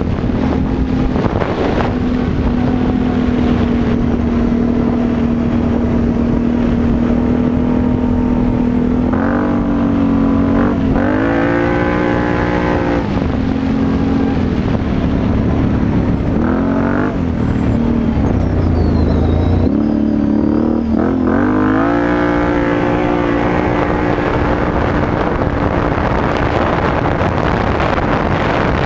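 Can-Am Renegade 850 XXC quad's Rotax V-twin engine running through a Yoshimura exhaust, holding steady revs while cruising. Several times in the middle it revs up and drops back as the throttle is opened and closed, then it settles into a steady run again.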